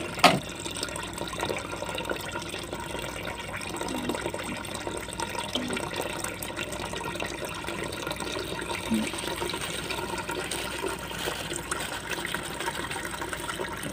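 Liquid running steadily from a pipe into a plastic bucket, splashing into the solution, with a short click just after the start.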